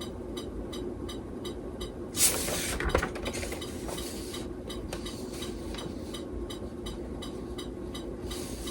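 A short, sharp rustle of handled paper or packaging about two seconds in, trailing off after about a second, over a steady low hum.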